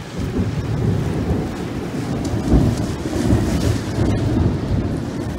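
Rolling thunder: a long, low rumble that swells just after the start, peaks about halfway through, and slowly dies away.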